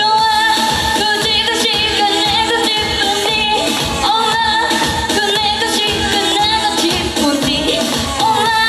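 Pop music with a steady beat and a woman singing, played loudly through the venue's PA.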